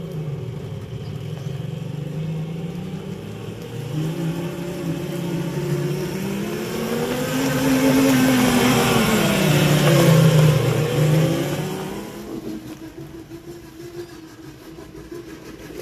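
Electric motor of a quad ATV converted to electric drive, whining as it is ridden, its pitch rising and falling with speed. It is loudest about eight to eleven seconds in as the quad passes close, with tyre hiss on the dirt, then fades away.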